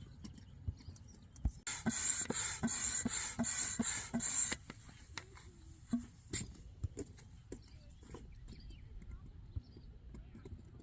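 Hand air pump inflating an Intex inflatable kayak's side chamber, with rhythmic hissing strokes of air at about three a second for roughly three seconds. Light clicks and knocks of handling the pump and valve follow.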